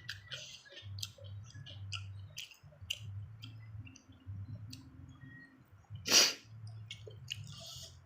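Close-up crunching and chewing of raw young cucumber and unripe green mango: scattered crisp, wet crunches, with one louder crunch about six seconds in. A low steady hum runs underneath.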